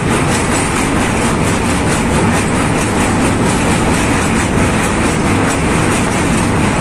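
Passenger train running along the track: a loud, steady rumble and rattle of the carriage and its wheels on the rails.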